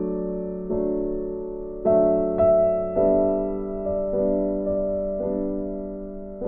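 Background music: slow, gentle piano, single notes and chords struck every half second to a second and left to ring and fade.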